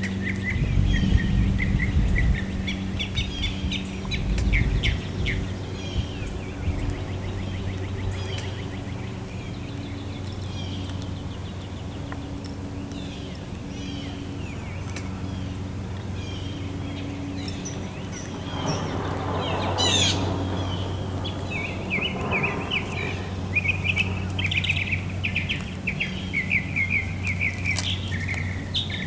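Small birds chirping and calling repeatedly outdoors, over a steady low hum. A low rumble is loudest in the first few seconds, and a broader rushing sound swells and fades about two-thirds of the way through.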